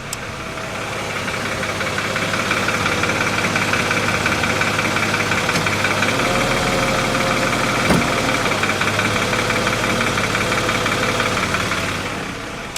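Mercedes M112 V6 engine idling with a steady, rapid ticking knock. The owner believes it is a hydraulic valve lifter. The sound grows louder over the first couple of seconds and eases off near the end.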